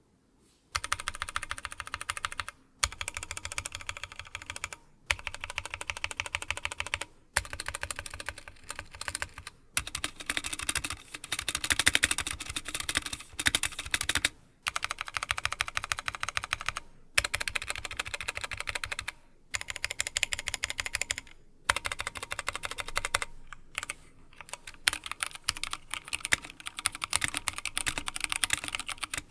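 Typing on a Drop ALT High-Profile mechanical keyboard with Kailh Speed Silver linear switches, aluminium frame and PBT keycaps: quick runs of key clacks in bursts of about two seconds with brief pauses between. The typing starts about a second in.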